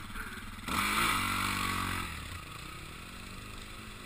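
Dirt bike engine: a sudden loud burst of revs about two-thirds of a second in that falls away in pitch over the next second or two, then picks up again, over a steady low idle.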